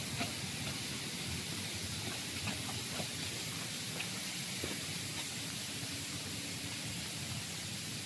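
Steady high hiss of tropical forest background, with a few faint scuffs of footsteps on a rocky trail.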